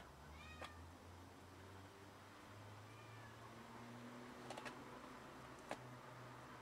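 A cat's faint, low, drawn-out meowing as it crouches over a rat it has caught, with a few soft clicks about half a second in and again near the end.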